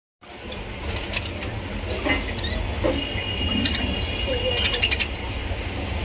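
Budgerigars chirping and chattering in short scattered calls and clicks, with one thin steady high note held for nearly two seconds in the middle, over a constant low hum.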